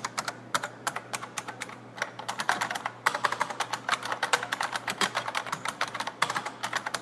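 Typing on a Unicomp buckling-spring keyboard: fast, continuous key clicks, with a short lull about two seconds in before the typing picks up again.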